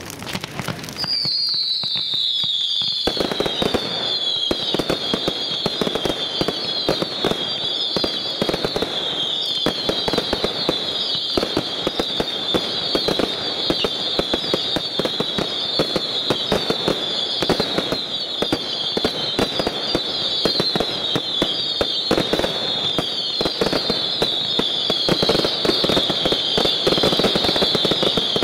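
Firework display: a dense, continuous crackle and popping of aerial bursts, under a run of overlapping high whistles that each drop slightly in pitch. The whistles start about a second in, and the crackle grows heavier about three seconds in.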